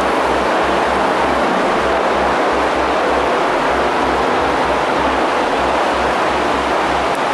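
Steady rushing hiss of compressed air from a paint spray gun while base coat is sprayed onto a car body, with an uneven low rumble underneath.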